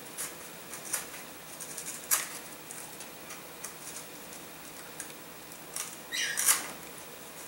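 Small scratching and scraping clicks of a knife blade carving away at the servo openings in a model glider's fuselage to clear the servo control horns, with a longer, louder scrape about six seconds in.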